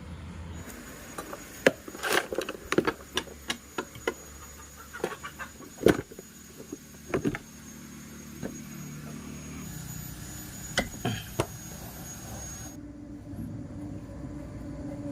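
Irregular clinks and knocks of metal tools and parts being handled while a scooter engine is worked on, over a steady low hum.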